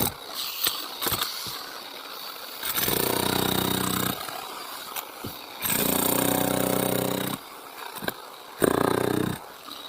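Concrete-cutting saw motor running in three spells of a second or two each, with knocks and clatter between them.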